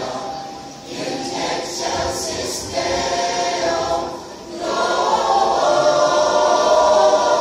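Mixed choir of men and women singing a Christmas carol a cappella. The held chords break off briefly about a second in and again just past four seconds, between phrases.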